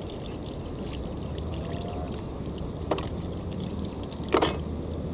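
Water from a hose running and splashing onto a fish-cleaning board, with two sharp knocks from the knife against the board, a little under three seconds in and near the end, the second the louder.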